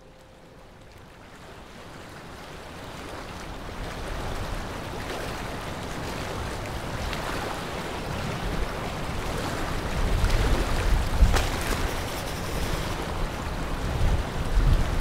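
Wind rushing across open ground, fading in from near silence and building steadily, with strong low gusts in the last third.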